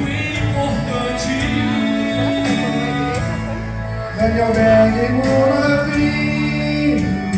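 Men's choir singing a worship song in held, sustained notes.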